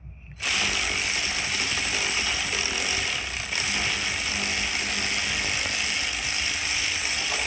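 A power tool running continuously with a steady, high-pitched hiss and whine, starting abruptly about half a second in. It is used on the fasteners of a Milwaukee-Eight engine being taken apart.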